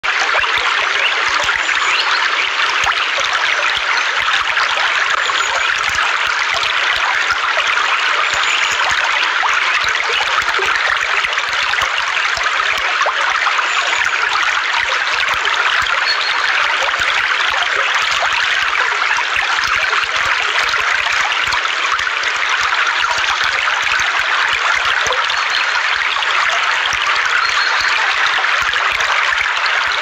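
Shallow rocky stream flowing over and around stones, a steady rush of running water.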